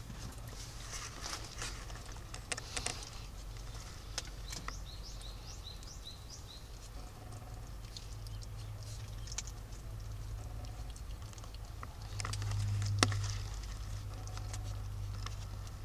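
Small kittens' paws and claws pattering and scratching about on a blanket and cardboard box: a scatter of light clicks and scuffs over a steady low hum, with one sharper click a few seconds before the end.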